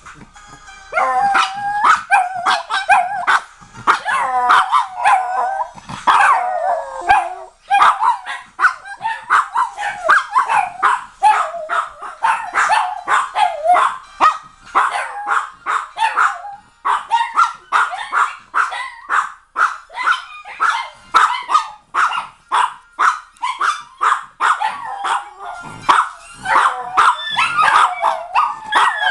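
Several small dogs howling and barking together, a dense run of quick yapping barks, several a second, over wavering howls that rise and fall in pitch.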